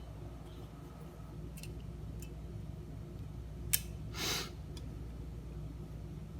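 Small metal parts and a hand tool handled while a spring is worked loose from a turntable's tone-arm gear mechanism: a few faint ticks, a sharp click a little before four seconds in, then a brief scrape, over a steady low hum.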